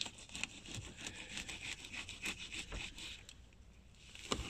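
Knife sawing through a mackerel on a cutting board to cut bait: a run of short, irregular scraping strokes, with a louder knock near the end.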